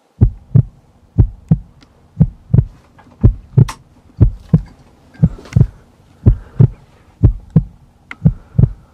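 Heartbeat sound effect: a slow lub-dub, two deep thumps close together, repeating about once a second. A faint steady hum lies underneath.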